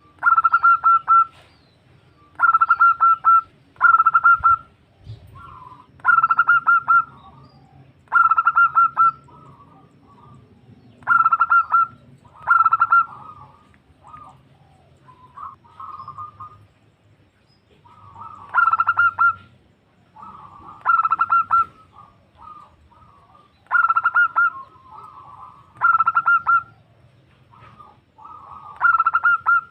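Female zebra dove (perkutut) cooing, calling to a male. About a dozen loud phrases come every two to three seconds, each a rapid stuttering run of notes about a second long. Softer short coos fall between them.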